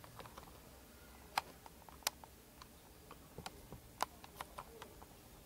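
Scattered small sharp clicks and taps of hard parts being handled, three of them louder, as a rivet and washer are worked into place through a hard suitcase shell.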